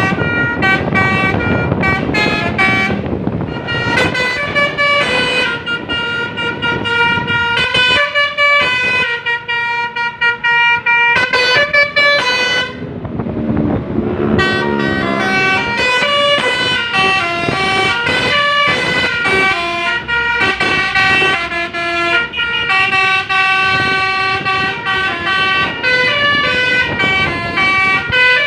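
Basuri telolet bus horn, a multi-trumpet air horn, playing its full run of musical tunes: chords of steady tones that jump from pitch to pitch, breaking off for a moment near the middle.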